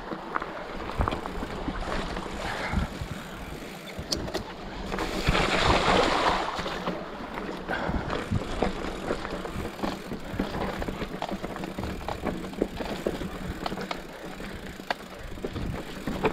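Bike rolling down a rough dirt trail: steady tyre and gravel noise with many small rattles and clicks, and wind buffeting the microphone. A louder rush of wind and trail noise swells about five seconds in and eases off a couple of seconds later.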